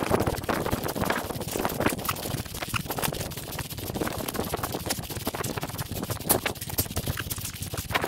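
Heavy rain falling with a dense, steady crackle, and footsteps through wet grass as someone walks.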